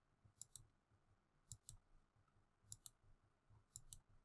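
Faint computer mouse clicks: four in all, a little over a second apart, each a quick double tick of the button going down and coming back up.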